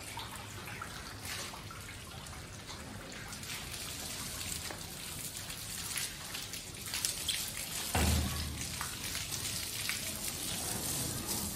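Water from a garden hose spattering and trickling over a car's roof and windshield, with a steady patter of drips. A brief low thump about eight seconds in.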